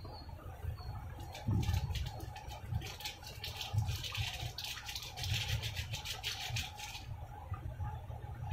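Fish broth boiling hard in a frying pan on a gas burner: a dense bubbling and popping that thickens in the middle and stops about seven seconds in, over a low rumble.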